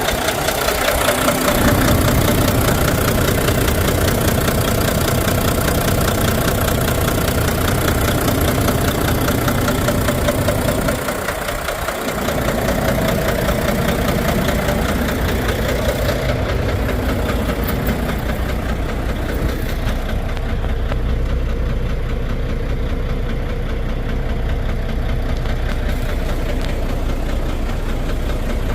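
Volvo D13 inline-six diesel engine idling while misfiring, a fault the title puts down to a damaged fuel injector.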